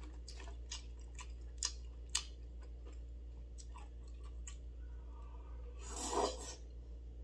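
Chewing and small clicks while eating tteokbokki with chopsticks, then a louder slurp from the bowl held at the mouth about six seconds in.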